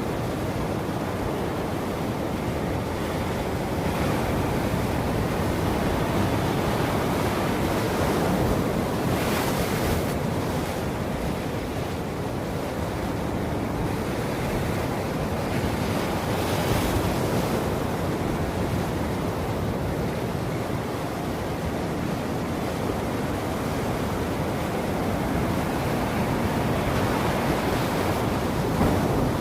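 Ocean surf: waves breaking and washing on a beach in a continuous rush, with swells rising and falling. A brighter hiss of spray comes about nine seconds in and again about sixteen seconds in.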